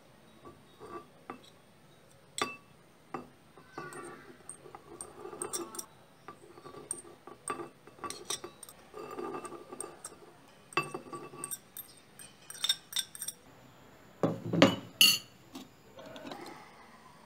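A spoon scraping and tapping chopped vegetables off a plate into a glass bowl: irregular clinks and scrapes of utensil on dishware, with a few louder knocks near the end.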